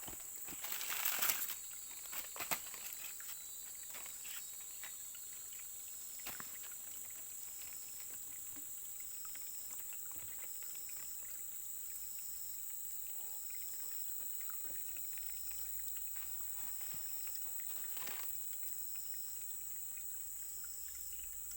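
Steady high-pitched drone of insects, with a short high note repeating about once a second from a few seconds in. A few brief rustles and knocks come in the first three seconds.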